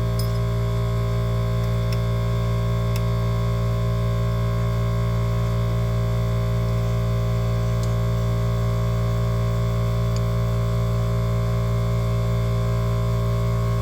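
A motor-driven shop machine running with a loud, steady hum made of several fixed tones, with a few faint ticks over it.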